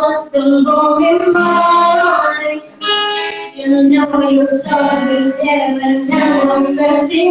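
A woman singing a song live into a microphone, holding long notes, with electric keyboard accompaniment. There is a short break in the voice about three seconds in.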